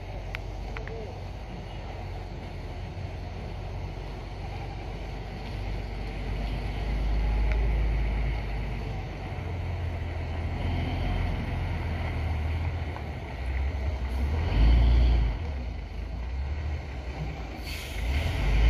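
Hino 500 flatbed truck's diesel engine pulling up a steep climb as it approaches, growing louder, with a brief hiss near the end.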